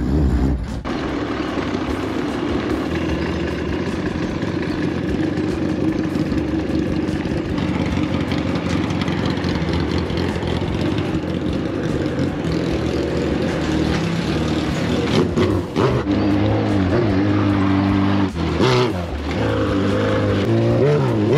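Motorcycle engine running while being ridden over rough trail, with a rushing noise underneath. About two-thirds of the way in the revs start rising and falling, and the sound dips briefly twice.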